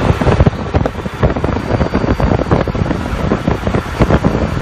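Wind buffeting the microphone in irregular gusts over the road noise of vehicles moving at highway speed.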